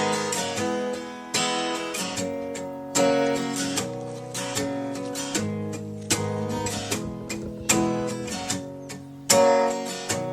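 Background music: an acoustic guitar song intro, chords struck about every one and a half seconds and left to ring out.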